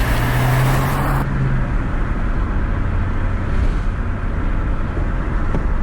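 VW Golf GTI 1.8T's turbocharged four-cylinder engine running while driving, heard from inside the cabin over steady road and wind rumble. A high rush of wind cuts off suddenly about a second in, and the engine's steady note drops away just under two seconds in, leaving the rumble.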